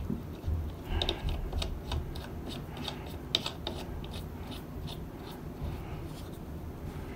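Quick small clicks and light scraping of metal parts handled by hand as an aluminium spinner cap is turned onto the threaded hub of an RC plane's propeller. The clicks come thickest in the first few seconds and then thin out.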